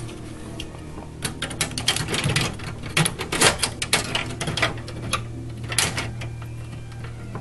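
Clicks, knocks and rattles of a hard drive tray being handled and fitted into a computer case's drive bay, densest through the middle and thinning near the end.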